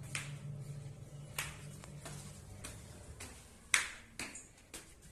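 Footsteps climbing stone stairs: six or so sharp slapping steps at an uneven pace, one much louder near the end, over a low steady hum.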